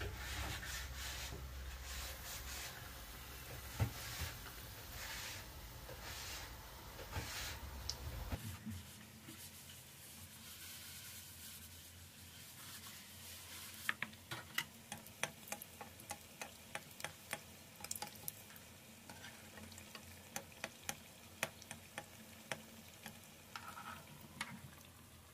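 Besan-battered potato chops (aloo chop) frying in hot oil in a pan: sizzling, with sharp pops and crackles that come thick and fast from about halfway through. Early on, soft repeated swishes of hands working the pieces through a bowl of gram-flour batter sit over a low hum, which stops suddenly about eight seconds in.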